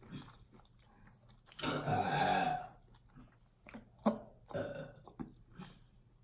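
A long, loud burp about a second and a half in, brought on by drinking Coke, followed by a few short wet clicks of chewing.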